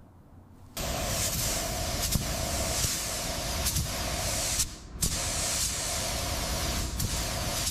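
A steady spraying hiss that starts abruptly about a second in and cuts out briefly around the middle, with a mid-pitched hum beneath it pulsing about twice a second.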